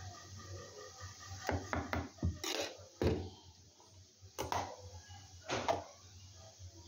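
Kitchen containers being handled on a stone countertop: a series of separate knocks and clatters, with plastic lids being fitted onto small steel bowls toward the end.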